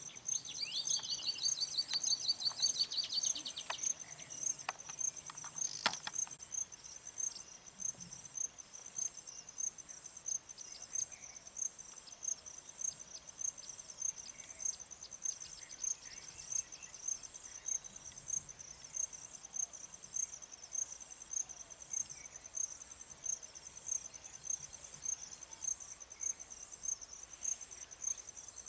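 Insects chirping in a steady, regular high-pitched pulse, about two a second. In the first few seconds a bird gives a fast chattering trill, and there is a sharp click about six seconds in.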